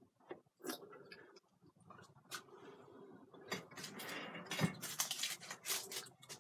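Faint handling noise: rustling with scattered clicks and soft knocks as someone leans in close to the recording phone and reaches for it, busier in the second half.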